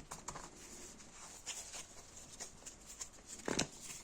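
Faint rustling of cards being handled and laid out, with one brief louder sound about three and a half seconds in.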